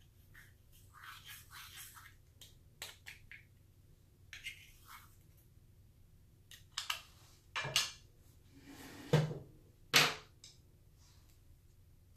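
Short scrapes, clicks and taps from small objects being handled, with a few louder knocks in the second half.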